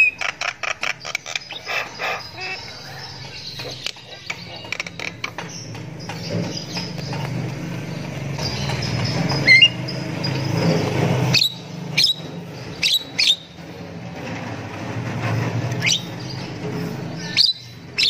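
Javan myna calling in its cage: a quick run of clicking chatter at the start, then sharp whistled notes, single and in pairs, scattered through the second half. A steady low rumble swells underneath in the middle.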